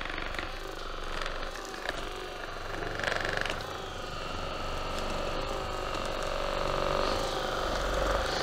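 Percussion massage gun running with a steady motor hum, growing a little louder toward the end.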